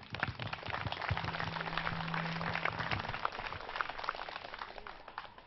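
Audience applauding, many hands clapping. It swells in the first second and dies away near the end.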